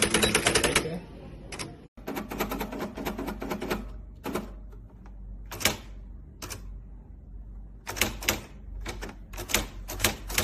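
Nakajima AX-150 electronic typewriter printing keystrokes, a sharp clatter of character strikes. It types in fast runs, then single strikes about a second apart, then more quick runs near the end. There is a brief break just before two seconds in.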